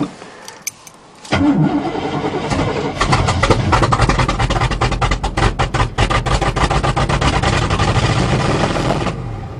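1977 GMC truck's cold 400 small-block V8 being started: cranking begins about a second in, and the engine catches a couple of seconds later and runs roughly with an uneven beat. It falls away near the end. The engine is struggling to keep running cold on fuel from a bottle, with the carburetor not liking the cold.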